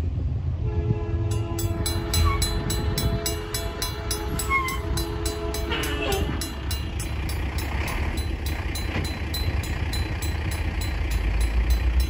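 Safetran mechanical crossing bell ringing steadily at about three to four strokes a second, starting about a second in, as the crossing activates for an approaching train. Over it the train's horn sounds a steady chord until about halfway through, with a low rumble underneath.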